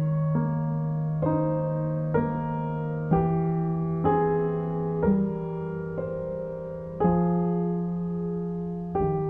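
Soft background piano music, chords struck about once a second over a sustained low note.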